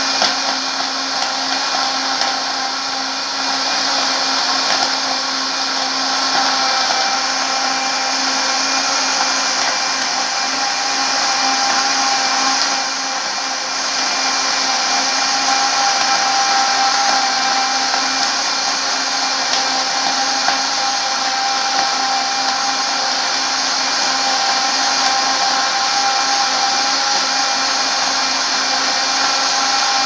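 Old Walita Firenze 325 W blender running steadily at one speed, its motor whining over the churn of frozen acerola and water in the jar. Acerola seeds can be heard knocking in the jar, which the owner puts down to a blade that must be worn.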